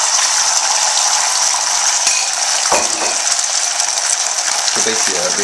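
Beaten egg frying in hot butter in a stainless steel pan: a steady, high sizzle. A brief knock comes a little under three seconds in.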